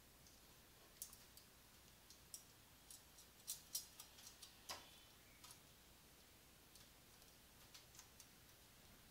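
Faint, irregular clicks and taps as a plastic servo motor is fastened to a perforated metal chassis with small nuts and bolts. Most of the clicks come between about one and five seconds in, with a few more near the end.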